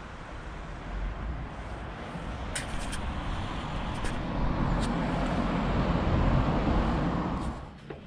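Road traffic: a motor vehicle approaching and passing close by, its noise growing louder over several seconds and then cutting off suddenly near the end. A few light clicks are heard along the way.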